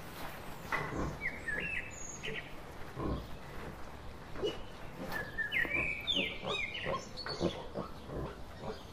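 Wild boar making short grunts and snuffles as it roots with its snout in the dirt. Birds chirp in the background in two short bursts, about a second in and again midway.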